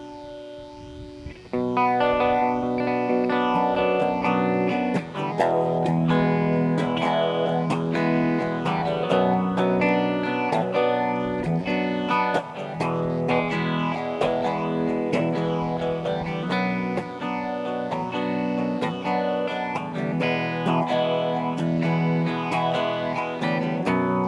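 Guitar music played through effects: a held note fades, then about a second and a half in the playing comes in loud with quick plucked notes over a steady low line.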